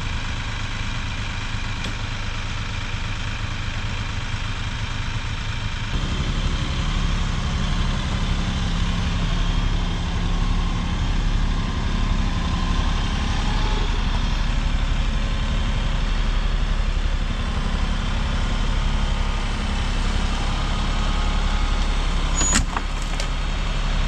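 Compact tractor's diesel engine running as it carries a heavy log on its front forks. It gets louder and deeper about six seconds in, and there is one sharp knock near the end.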